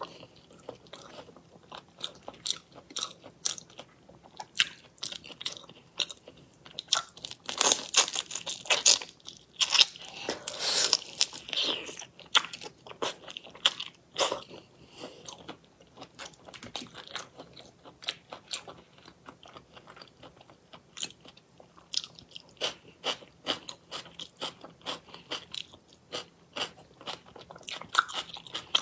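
Close-up crunching and cracking of whole raw soy-marinated shrimp being pulled apart by hand and bitten, shells snapping, mixed with wet chewing. A quick run of sharp cracks, thickest and loudest about a third of the way in, then sparser clicks.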